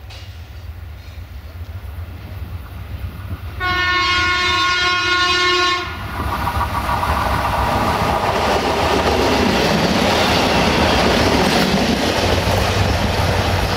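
A diesel railcar sounds one steady horn blast of about two seconds as it approaches, then runs past with a rising rush of engine and wheel noise, the wheels clicking over the rail joints.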